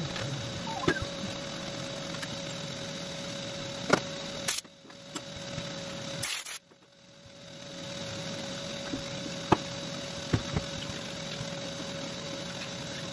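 Steady machine hum in a machine shop, with a handful of sharp metallic clinks as hand tools and T-slot bolts are worked while a fixture is removed from a CNC machining center's table. The hum drops away for a couple of seconds about halfway through.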